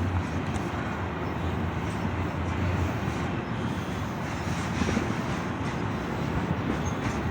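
Union Pacific double-stack freight train running, a steady low rumble.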